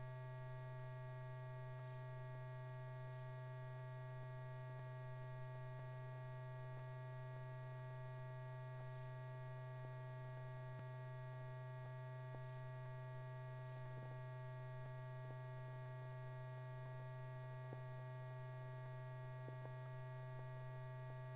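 Steady electrical mains hum in an old film soundtrack: a strong low drone with several fainter steady tones above it, broken only by a few faint clicks.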